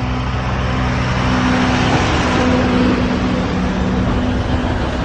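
Alishan Forest Railway narrow-gauge diesel train pulling into the station, its engine running with a steady low hum and a rush of running noise that swells toward the middle.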